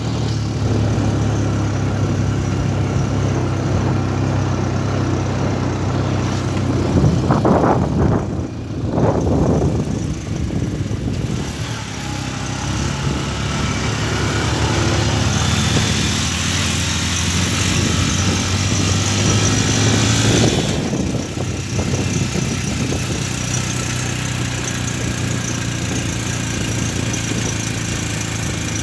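Motorcycle taxi engine running steadily under way, carrying a passenger.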